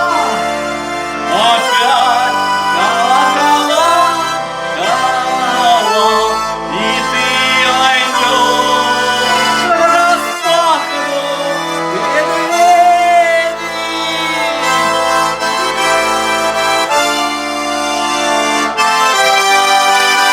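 Garmon (Russian button accordion) playing a song tune: a right-hand melody over sustained bass and chord notes that change every second or two.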